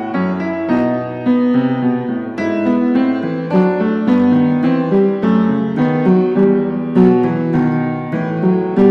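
Background instrumental music: a keyboard melody of separate struck notes, each starting sharply and fading.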